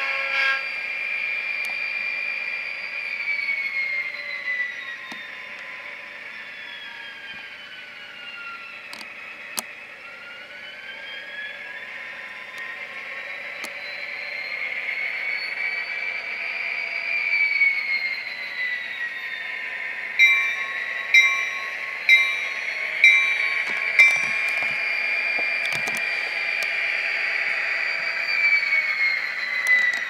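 LokSound sound decoder in a Kato SD40-2 model locomotive playing recorded EMD diesel sounds through its small speaker: the engine and turbo whine drop in pitch as the throttle comes down, then climb again. About two-thirds of the way through, the horn gives five short toots, about one a second.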